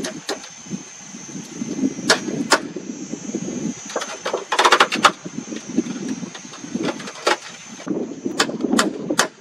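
Irregular sharp knocks and clicks from hand work, with a quick cluster of them about halfway through, over continuous rustling handling noise and a steady faint high tone.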